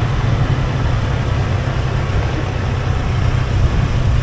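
A motor running steadily and loudly, heavy in the low end, with an even rushing noise over it, as when riding in a motor vehicle or boat.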